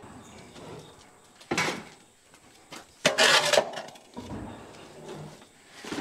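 A shovel scraping across a barn floor, scooping up old wood-chip bedding and manure and tipping it into a plastic garden cart. There is a short scrape about a second and a half in, a louder, longer scrape about three seconds in, and another near the end.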